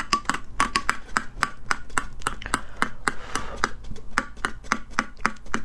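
Metal spoon clinking rapidly against the inside of a glass cup, about four clinks a second, as nut lotus root powder is briskly stirred into just-boiled water.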